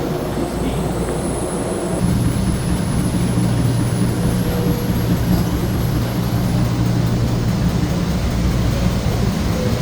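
Steady low drone of a cruise ship's below-deck machinery, growing louder about two seconds in.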